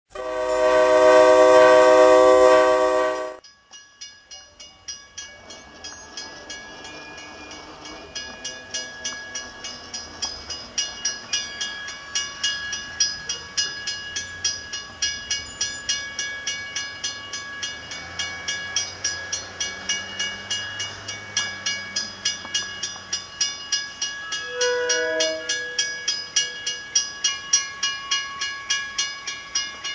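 A loud, multi-note train horn chord for about three seconds. Then a grade crossing bell rings steadily about twice a second while a commuter train approaches, with a low rumble midway and a short horn blast about 25 seconds in.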